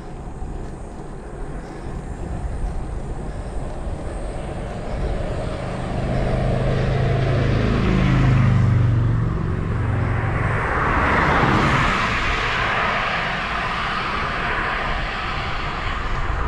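A motor vehicle passes on the road: its engine note falls in pitch about halfway through, then tyre noise swells and slowly fades. Under it, low wind rumble on the microphone of a moving bicycle.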